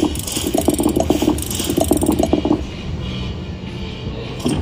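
Huff n' More Puff video slot machine's sound effects: quick ratcheting clicks in a few clusters as the reels spin and mansion symbols land, turning quieter after about two and a half seconds.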